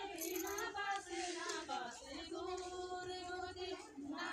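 A group of women singing together, with long held notes that bend smoothly, as they dance in a hand-holding circle.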